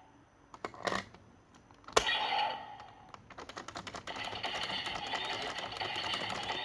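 Toy sentai transformation device: a couple of button clicks, then a sharp click about two seconds in that sets off a short electronic sound effect, followed by a fast run of ticks over a held tone from its speaker.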